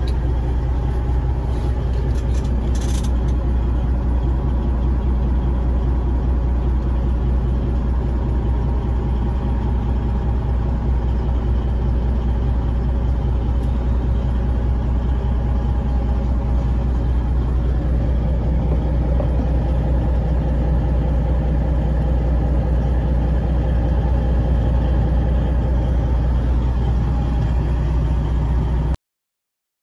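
Detroit Diesel Series 60 12.7-litre inline-six diesel in a Peterbilt 389 glider idling steadily, heard from inside the cab. The hum cuts off suddenly near the end.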